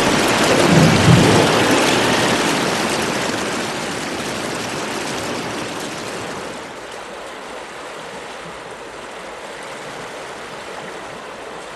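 Waterfall water rushing loudly, with a deep thud about a second in, then fading over several seconds into a steadier, quieter river rush.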